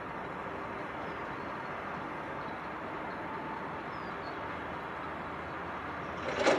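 Steady running noise of a scrap truck's engine with its loader crane parked and the grapple folded, and a sudden loud clatter near the end.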